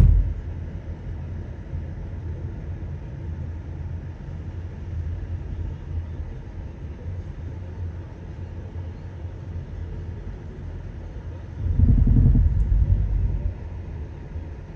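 Car driving: a steady low rumble of engine and road noise. About twelve seconds in, a louder low rumble swells for under two seconds, then drops back.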